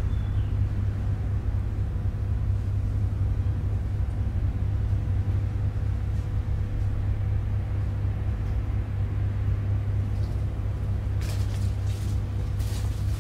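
A steady low rumble under a faint steady hum, with a few short sharp clicks close together near the end.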